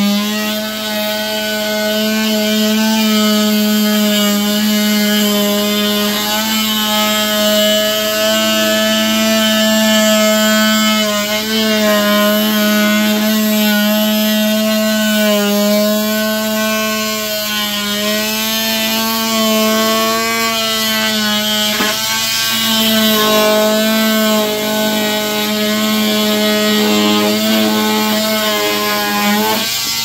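Small corded handheld power saw running steadily as it cuts through drywall sheets, its motor whine wavering slightly in pitch under load and cutting off at the very end.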